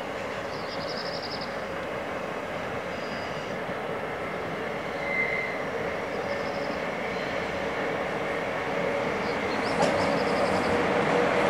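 SNCF BB 27072 electric locomotive hauling a long train of car-carrier wagons, its running noise growing steadily louder as it approaches, with short high-pitched wheel squeals from the curve now and then.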